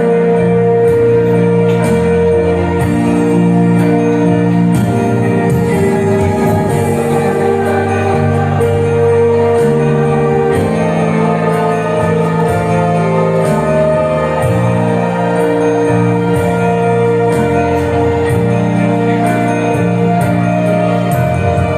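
Slow music of long held chords that change every second or two.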